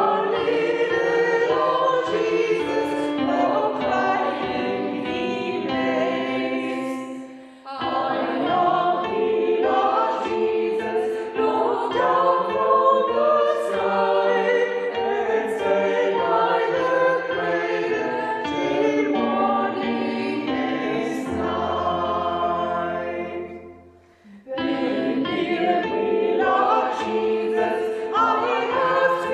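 Choir singing, with two short breaks between phrases, at about 8 and 24 seconds in.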